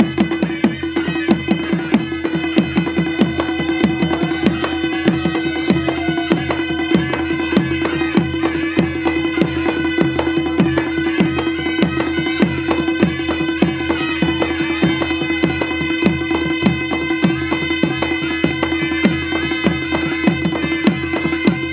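Nepali folk dance music: a steady held drone under a quick, even drum beat whose strokes drop in pitch.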